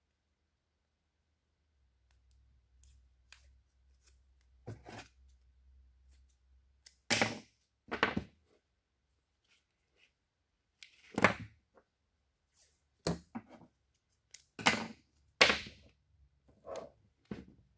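Handling noises from a wiring harness in plastic split loom and hand tools being worked with on a workbench. It starts about two seconds in, then about seven short, sharp rustles and knocks come a second or two apart.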